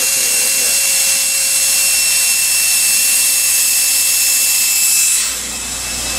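Cordless drill motor running steadily at full speed with a high whine, its bit rubbing as it widens the hole in a small part held in pliers. The rubbing hiss eases about five seconds in while the motor keeps running.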